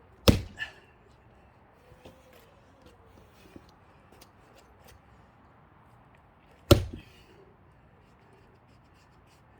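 Two heavy axe blows into a thick, not fully dried pine round being split by hand, about six seconds apart, each a sharp crack followed by a smaller knock.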